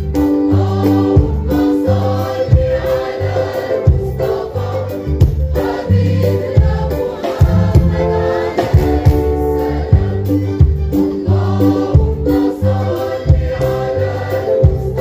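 Mixed choir and string orchestra performing a Moroccan devotional song, the choir singing held lines over a steady low beat.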